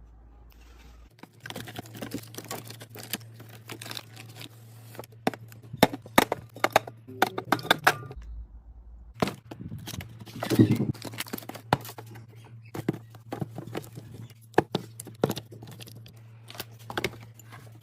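Food packaging and containers handled while restocking a fridge: irregular clicks, knocks and crinkling plastic, over a steady low hum.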